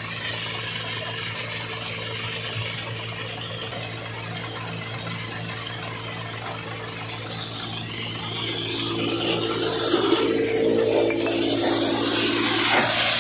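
Tractor diesel engine running steadily, driving a castor thresher as it threshes castor: a low hum under a rushing hiss, growing louder in the last few seconds.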